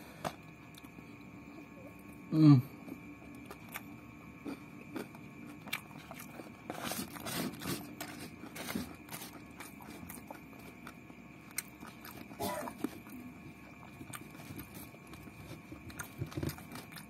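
Close-up eating sounds: a person chewing rice, pork and chicken eaten by hand, with small clicks and the crinkle of the paper and plastic food wrapping. About two and a half seconds in comes a short vocal sound that falls in pitch, the loudest moment, with another brief one near twelve seconds.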